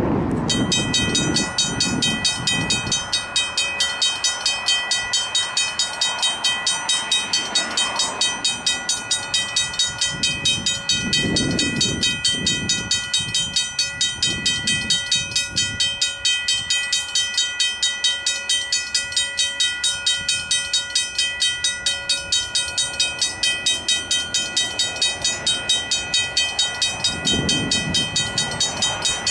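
Griswold mechanical level-crossing bells start ringing about half a second in, a rapid, even clanging of about three strokes a second with a steady ring. The crossing has activated, warning of an approaching train.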